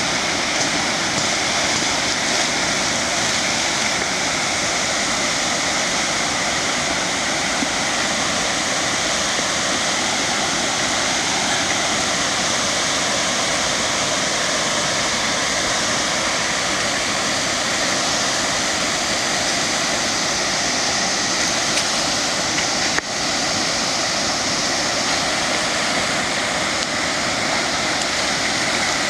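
Waterfall: a steady, loud, unbroken rush of falling water, with one brief click about three-quarters of the way through.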